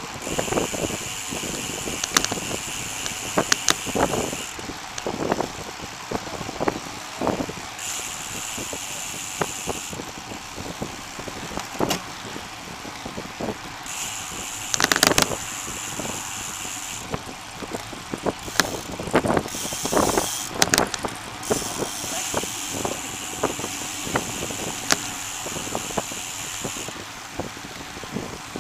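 Riding noise of a bicycle heard through a camera mounted on the bike: steady wind buffeting and tyre rumble on the path, with frequent short knocks and rattles from bumps. A high hiss comes and goes in stretches of a few seconds.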